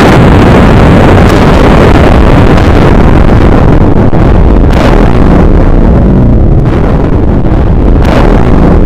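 Sound-effect nuclear explosion: a sudden loud blast that goes straight into a long, dense rumble, swelling briefly about halfway through and again near the end.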